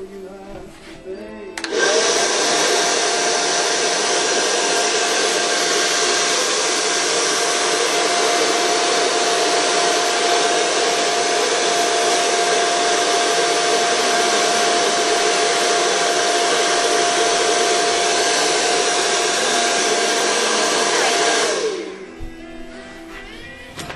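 Handheld hair dryer switched on about two seconds in, running steadily with a constant motor whine over its rush of air, then switched off near the end.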